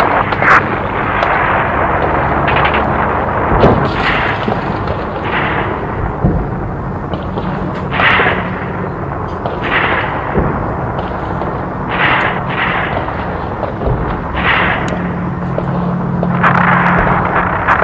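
Battle sound: a continuous rumble of gunfire with sharp cracks and louder artillery shots or explosions going off every second or two.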